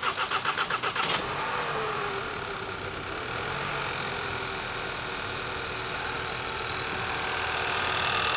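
Starter cranking the 2014 Volkswagen CC's CCTA 2.0-litre turbo four-cylinder for about a second until it catches. The revs fall back after a couple of seconds and it settles into a steady idle, running on its two newly replaced injectors.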